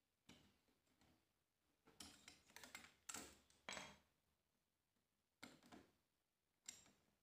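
Faint, irregular clicks and short scrapes of small hand tools working on phone parts, as a connector is worked loose from an old LCD.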